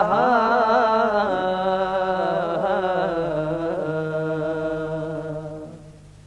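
Male voice singing a long, drawn-out note at the end of a salam line, wavering at first and then held, over a steady low hum, fading out near the end.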